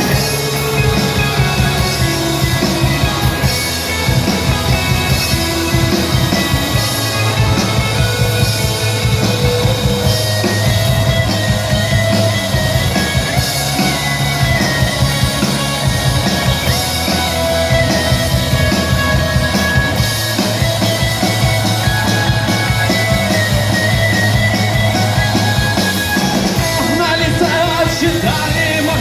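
Rock music, a passage without sung lyrics, with a steady, even beat.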